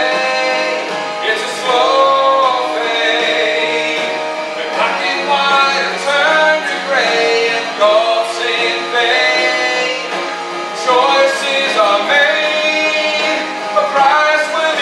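A man singing a gospel worship song over sustained instrumental chords.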